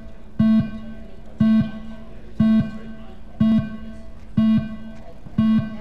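Electronic beeper sounding a short, low, buzzy beep about once a second, six beeps in a row, each cut on and off sharply.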